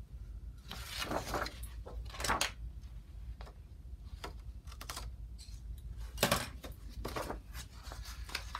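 Paper strips being handled and rolled into paper beads: a string of short, irregular rustles and crinkles of paper.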